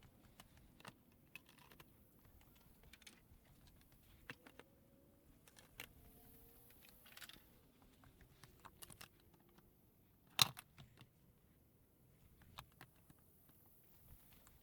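Scattered light clicks and knocks of plastic brackets and composite boards being handled and fitted together, with one sharp, louder snap about ten seconds in.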